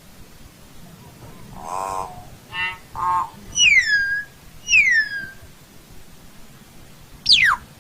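Common hill myna calling: a string of varied calls, from a reedy lower note and short buzzy notes to two clear whistles sliding downward about a second apart, then a sharp falling whistle near the end.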